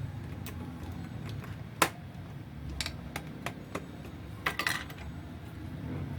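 Scattered small sharp clicks and taps of hardware being handled as an Intel processor is seated in the motherboard's CPU socket, the loudest about two seconds in and a quick cluster near the five-second mark. A steady low rumble runs underneath.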